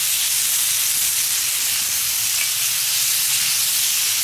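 Pork fillet medallions sizzling on a hot steel fire plate (plancha), a steady frying hiss.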